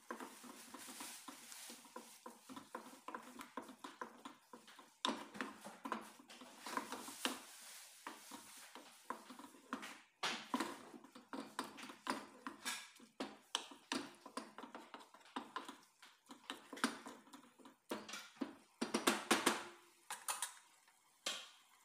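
Wooden spatula stirring minced beef and tomato paste in a non-stick pot, with irregular scrapes and knocks against the pan, busiest near the end.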